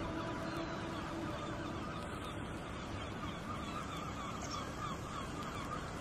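A flock of gulls calling, many overlapping short calls in a steady chatter over low background noise.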